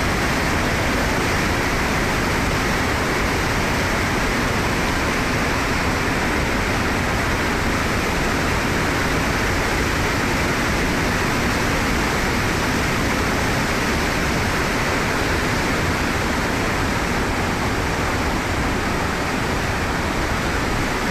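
Swollen floodwater rushing past in a steady, unbroken wash of noise.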